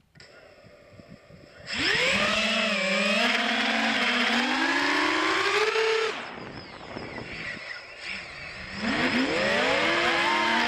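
Eachine Wizard X220 FPV quadcopter's brushless motors and propellers whining in flight. The throttle is punched about two seconds in, with the pitch climbing steadily, then it drops back around six seconds and is punched again near the end with another rising whine.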